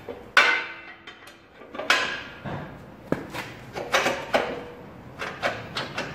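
Steel locking pin and bracket on a hydraulic log splitter's beam clinking and knocking as it is handled and fitted by hand. There are about ten sharp metal clicks and knocks; the first, about half a second in, is the loudest, and a few ring briefly.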